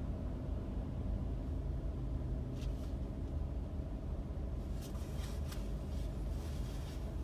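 Steady low rumble of a car idling in stopped traffic, heard from inside the cabin. A few faint brief rustles come through around the middle.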